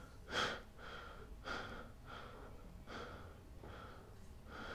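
A person panting: quick, short breaths, about two a second, faint.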